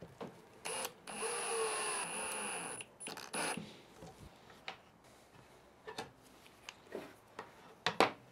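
AEG cordless drill-driver driving a screw: a short blip, a run of about two seconds with the motor pitch sagging slightly under load, then one more short burst. Light clicks and taps follow near the end.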